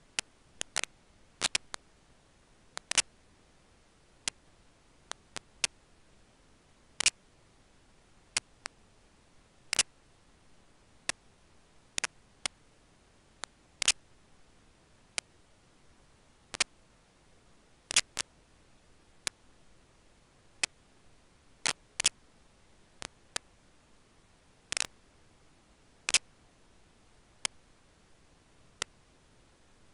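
Sharp, dry clicks at irregular intervals, about one a second and sometimes two close together, over a faint steady hiss.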